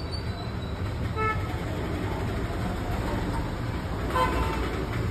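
Steady road-traffic rumble, with two short vehicle-horn toots, one about a second in and a louder one about four seconds in.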